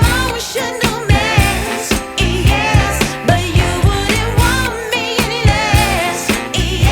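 Background pop song with a female singing voice over a steady beat.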